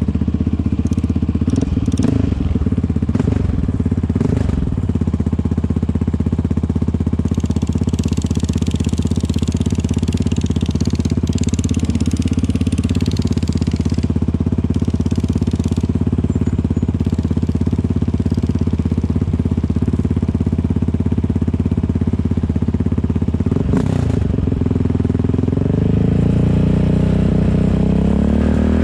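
Sport ATV's engine idling steadily under the rider, then revving up and pulling away in the last few seconds.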